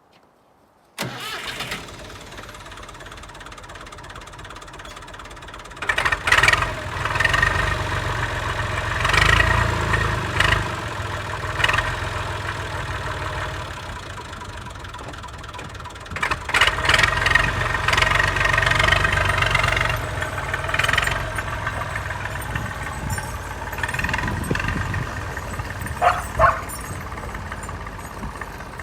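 Tractor engine starting about a second in and running, speeded up twice for several seconds at a time and then dropping back toward idle.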